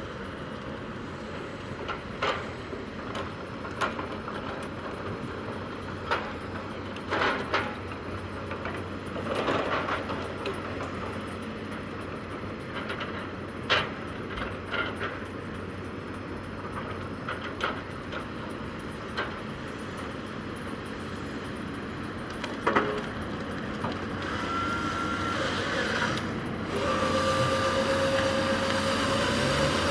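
Heavy logging machine's diesel engine running steadily, with scattered sharp knocks and clanks of work going on. Near the end a steady whine comes in and the sound gets louder.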